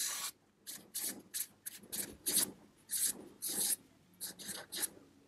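Felt-tip marker drawing on flip-chart paper: one longer scratchy stroke, then about a dozen short quick strokes as small circles are drawn.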